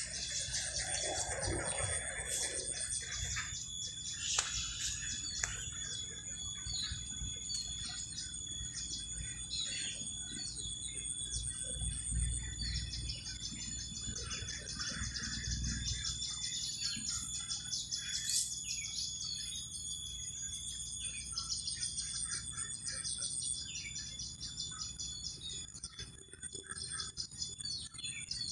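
Birds chirping over a dense, fast-pulsing trill of insects, with steady high-pitched insect tones beneath it. A low rumble rises for a few seconds around the middle.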